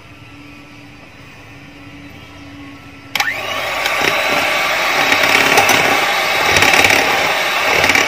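Electric hand mixer switched on about three seconds in, then whirring loudly and steadily as its beaters whip a thick coffee, sugar and water paste into cappuccino cream.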